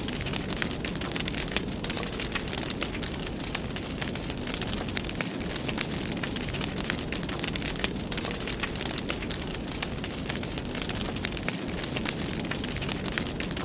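Wood fire crackling in a fireplace: a steady rush of flame with many small sharp pops and snaps scattered irregularly throughout.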